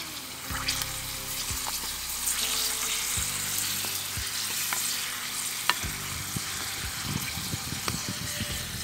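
Papadam frying in hot oil in a metal wok, a steady sizzle, with the scrape and knock of a coconut-shell ladle stirring and turning them, busiest near the end.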